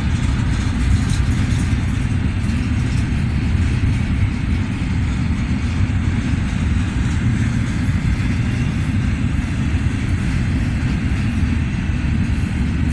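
Double-stack intermodal freight train rolling past, its container cars making a loud, steady low rumble with wheel and rail noise.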